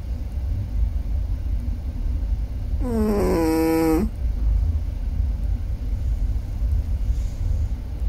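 Sleeping Chihuahua snoring: one long pitched snore about three seconds in, lasting a little over a second, its pitch dipping at the start and then holding. A low steady rumble runs underneath.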